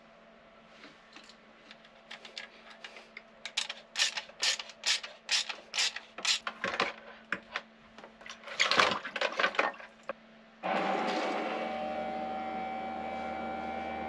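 Clicks, knocks and rattles of a pump and hose being fitted for about ten seconds. Then a Rule 2000 bilge pump switches on and runs with a steady electric hum, pushing pickling solution through a watermaker.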